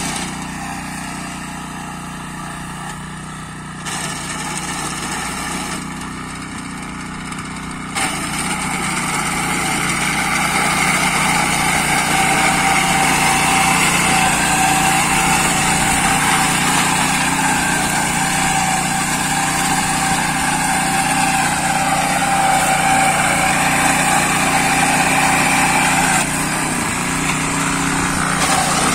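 Small engine of a walk-behind wheat reaper running steadily while its cutter bar mows standing wheat, louder and closer from about eight seconds in.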